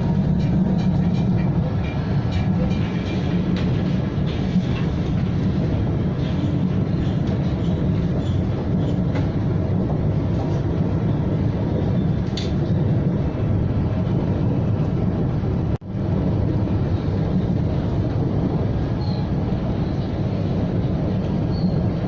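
Cabin noise aboard a moving KTM ETS electric train: a steady low rumble of the carriage running on the rails, with a few faint clicks. The sound cuts out for an instant about two-thirds of the way through.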